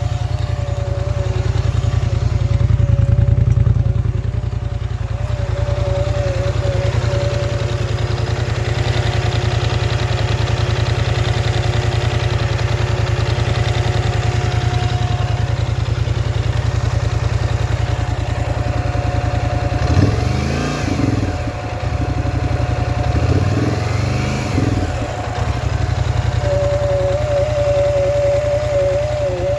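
Polaris Scrambler XP 1000 S ATV engine idling, with a wavering whine over the idle that the owner finds weird. Twice, about two-thirds of the way through, the engine is revved briefly and falls back to idle.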